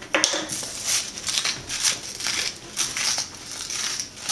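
Hand salt grinder being twisted, a rapid series of gritty crunching bursts about three a second as salt crystals are ground, after a short knock at the start.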